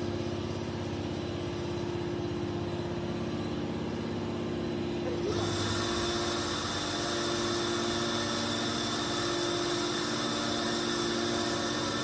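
Hydraulic power unit of a 315-ton metal scrap baler running steadily with a constant whine. About five seconds in, a higher hiss joins and holds.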